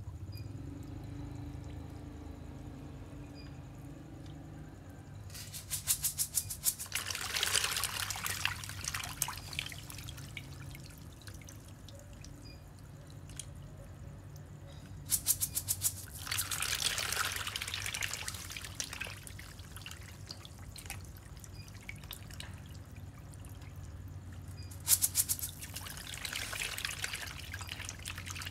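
Fish in a bucket pond splashing and thrashing at the water surface in three bouts, each opening with a quick patter of small taps: a feeding frenzy as feed is thrown in.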